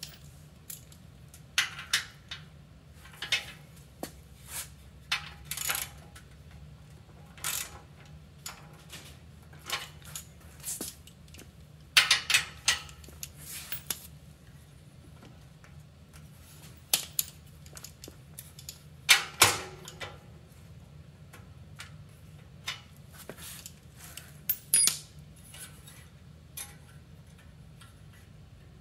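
Metal hand tools and bicycle hardware clinking and clacking as they are handled, in scattered single knocks and short clusters, the loudest about twelve and nineteen seconds in.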